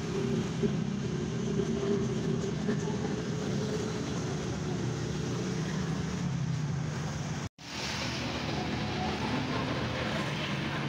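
Steady drone of a running engine, broken by a brief dropout about seven and a half seconds in.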